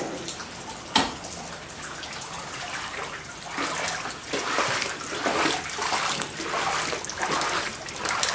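Footsteps wading and sloshing through ankle-deep floodwater, a swish with each step, steady steps from about three seconds in; a single sharp knock about a second in.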